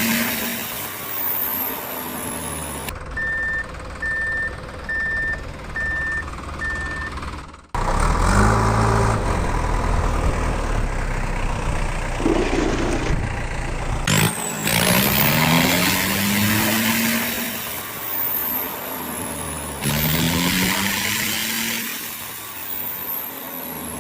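Heavy-vehicle engine sounds: an engine revving in rising pulls, then a reversing alarm beeping five times about once a second, then a low engine rumble followed by more revving.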